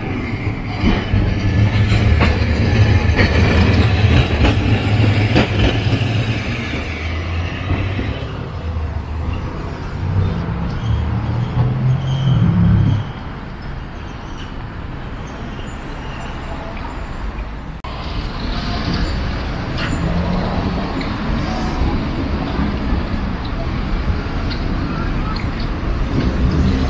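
Road traffic and a streetcar running on street-level tram tracks. A loud low rumble fills the first several seconds, a rising engine drone comes in about ten seconds in and breaks off sharply, and then a quieter, steady street hum follows.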